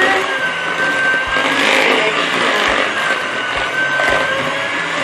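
Hand-held electric mixer running, its beaters whipping thick butter icing in a plastic bowl. The motor's whine wavers up and down in pitch as the beaters work through the icing.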